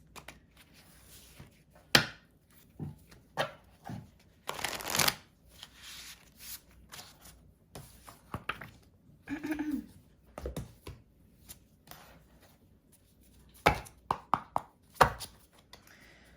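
A tarot deck being shuffled by hand: scattered taps and flicks of cards, a longer riffling rush about five seconds in, and a cluster of sharp taps near the end.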